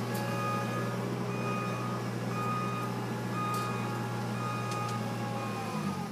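Engine of a pipe-pulling plough machine running steadily, with a warning beeper sounding about once a second; near the end the engine winds down and stops.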